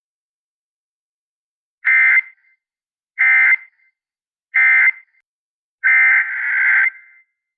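Emergency Alert System SAME data bursts on NOAA Weather Radio. Three short electronic bursts are the end-of-message signal closing the warning. Two longer bursts follow, the header for the next alert.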